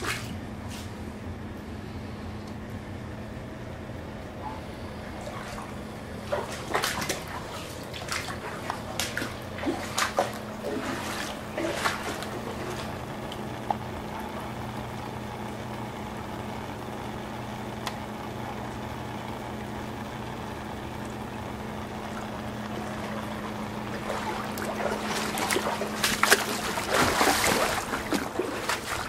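Rainwater running and trickling into a street storm sewer drain that is overwhelmed by a heavy downpour, over a steady low hum. Louder noisy bursts break in several times between about a quarter and a third of the way in, and again near the end.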